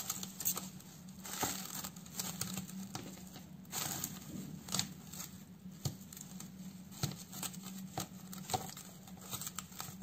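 Plastic cling film crinkling and rustling in irregular crackles as hands press and smooth it into a plastic bowl.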